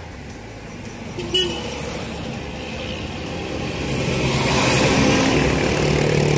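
Road vehicle noise: engine rumble and road noise that swell louder over the last few seconds, with a short sharp knock about a second in.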